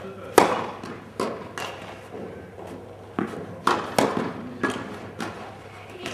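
Tennis balls being struck and bouncing: about eight sharp, irregularly spaced knocks, each with a short echo, the loudest just under half a second in.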